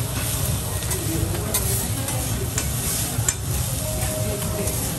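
Fried rice sizzling on a hot teppanyaki griddle while two metal spatulas scrape, turn and chop it, with several sharp clicks of the spatulas striking the steel plate.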